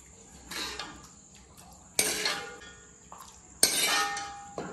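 Steel ladle clinking against a metal kadai and a stainless steel bowl as thick pickle is ladled from one into the other. Four short clinks, the loudest about two and three and a half seconds in, each ringing briefly.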